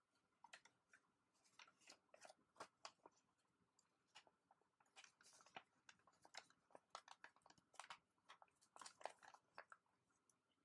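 A square of origami paper being folded and creased by hand: many short, crisp crinkles and taps in irregular clusters, faint.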